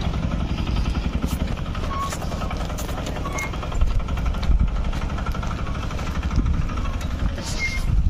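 Diesel auto-rickshaw engine running as the three-wheeler moves over a rough, stony dirt road.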